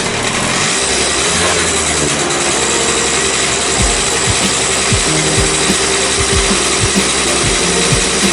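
Honda AF27 Super Dio scooter's 50cc two-stroke single-cylinder engine running with a loud, steady, raspy note. Irregular low thuds come in about four seconds in.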